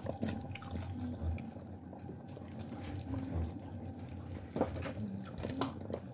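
A pot of stew simmering on the stove, bubbling softly, with light plops and patters as sliced radishes are dropped into the broth near the start.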